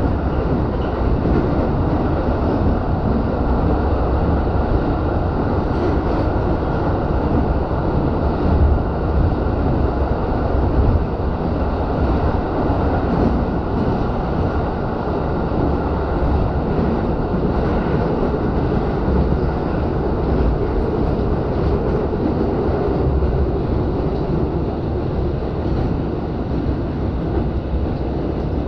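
JR East Joban Line commuter train running, heard from inside the front passenger car: a steady, loud rumble of wheels on rails and running gear, swelling slightly a few times.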